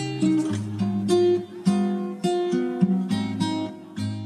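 Background music: an acoustic guitar picking a slow melody, about two to three plucked notes a second, each ringing out.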